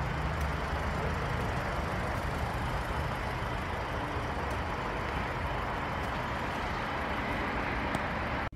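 Steady outdoor rumble of road traffic and vehicles, an even noise with weight in the low end, cutting off suddenly near the end.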